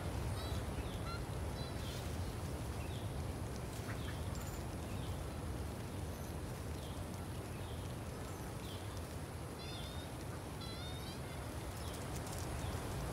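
Birds chirping: short high calls about every second, with a brief warbling call about ten seconds in, over a steady outdoor hiss.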